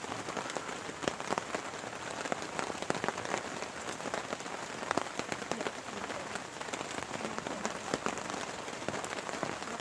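Heavy rain falling steadily, a dense hiss with many sharp individual drop hits ticking through it.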